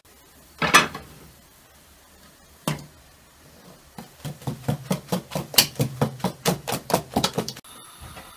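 Wire whisk beating a liquid mixture in a stainless steel bowl, rapid strokes knocking against the metal at about five a second for several seconds. Before that, two separate clanks from a glass pot lid being handled.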